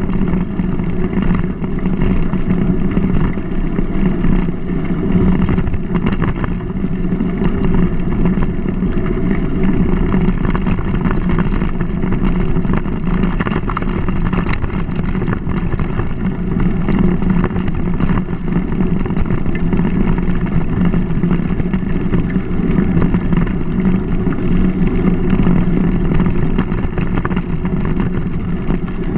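Steady low rumble of a mountain bike rolling along a dirt towpath, picked up by a GoPro on the moving bike: tyre noise and frame vibration mixed with wind on the microphone, with a few faint ticks from the bumps.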